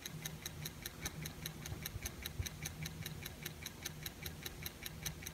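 Hurst synchronous motor from an AR turntable running on its own with no pulley or belt, making a rapid, even ticking of several clicks a second over a faint low hum. The click is intrinsic to the motor itself, not caused by belt or pulley.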